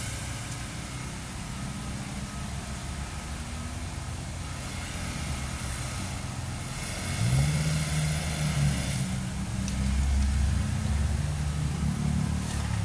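Street traffic with a steady low rumble; about seven seconds in, a motor vehicle's engine rises in pitch as it accelerates and runs on louder to the end.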